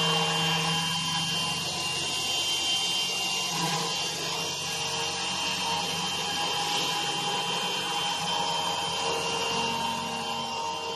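5-axis CNC router spindle running and cutting, a steady high whine over a continuous grinding hiss.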